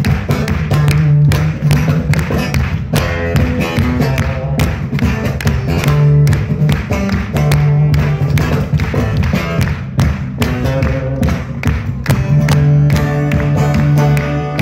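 Acoustic guitar strummed in a brisk, percussive rhythm with steady low notes underneath, played live through a concert sound system, with no singing.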